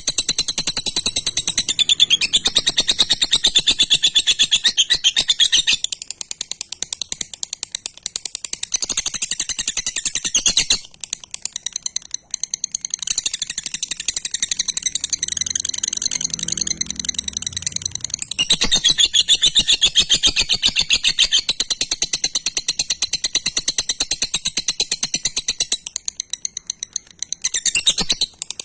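Lovebird chattering in a long 'ngekek' run: a fast, high rattling stream of rapidly repeated notes, rising to louder spells at the start and again about two-thirds through. Such long, unbroken runs are what bird keepers call a 'semi-konslet' lovebird.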